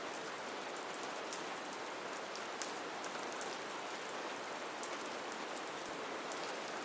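Steady rain falling, an even hiss with a dense patter of fine drop ticks.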